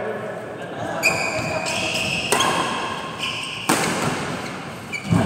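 Badminton rally: rackets striking the shuttlecock four times, about 1.3 seconds apart, each hit sharp and echoing in a large hall.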